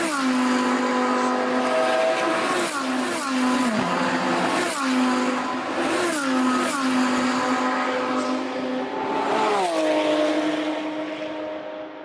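Rally car engine running hard at high revs, its pitch falling sharply about five times and holding steady in between, fading out near the end.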